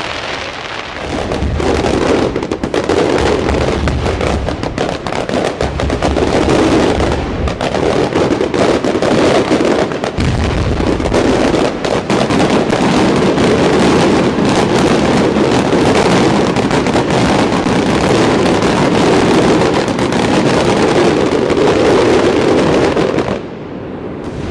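Aerial fireworks display: a dense, continuous barrage of shell bursts and crackling, which thins out suddenly near the end.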